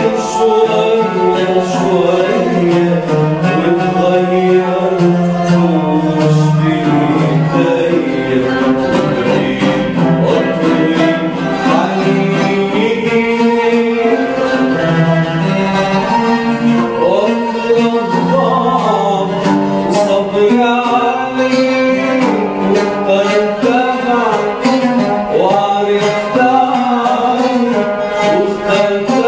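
Oud and qanun playing Arabic music while a man sings the melody.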